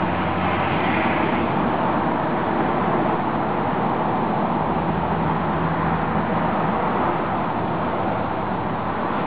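Steady rushing outdoor noise with a faint low engine hum underneath, from distant diesel heavy machinery working in a dock yard.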